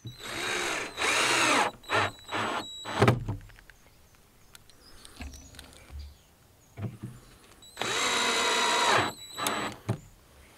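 Power drill running in bursts: two runs that spin up over the first two seconds and one about eight seconds in, each followed by a few short blips of the trigger, with light knocks in the quiet stretch between.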